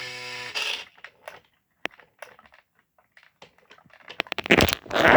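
Scattered small clicks and crackles, then a louder burst of rustling about four seconds in, like an object being handled close to the microphone.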